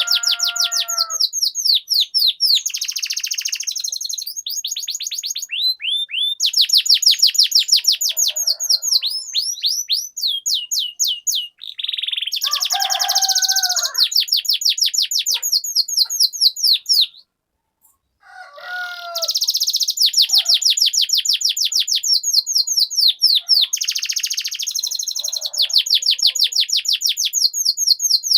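Domestic canary singing long rolling trills: phrases of fast, evenly repeated high notes, strung together with brief breaks and a short pause about two-thirds of the way through, and lower warbling notes in between.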